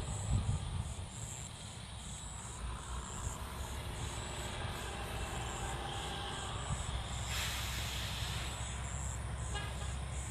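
Insects, cricket-like, calling high-pitched in an even repeating pulse over a steady low rumble, with a brief rush of noise about seven seconds in.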